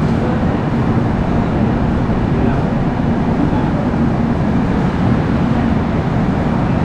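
Duronto Express train running at speed: a steady, loud rumble of wheels on the track with a low hum running through it.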